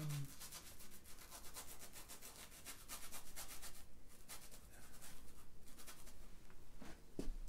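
Small paintbrush scratching over canvas in quick short strokes, several a second.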